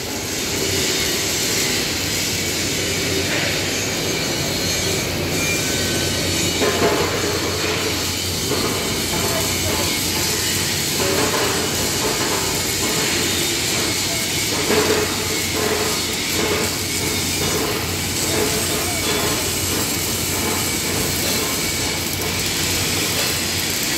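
Steady, even hiss over a low electrical hum with faint irregular knocks: running welding-shop noise, with electric arc welding on square steel tubing near the end.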